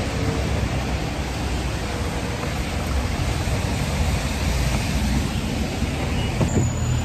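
Steady rushing city-street noise: an even hiss with an uneven low rumble underneath.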